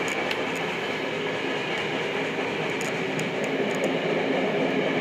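Tokyo Metro Namboku Line subway train running through the tunnel, heard from inside the car: a steady rolling rumble with a faint whine. A few short, faint high clicks come about three seconds in.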